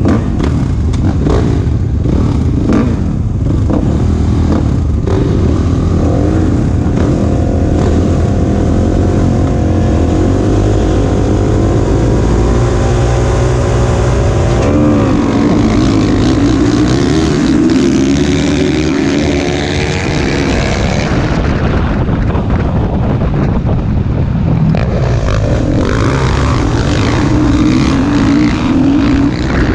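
Several motocross dirt bike engines revving on the starting gate. About halfway through they rev up hard and climb and shift through the gears as the pack launches off the line. Heard close up from on the rider's own bike.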